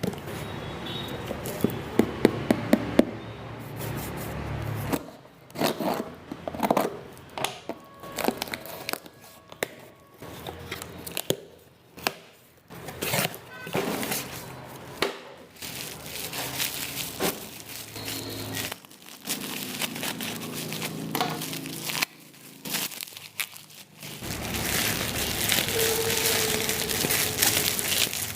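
Packaging being handled while a face wash is unboxed: crinkling and rustling, with many scattered clicks and taps.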